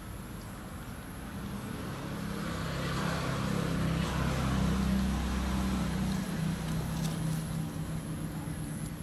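A motor vehicle's engine passing by, growing louder toward the middle and then fading away.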